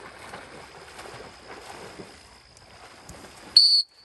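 A retriever pup swimming through marsh water, with soft, irregular splashing and wind on the microphone. Near the end, one short, loud, shrill whistle blast.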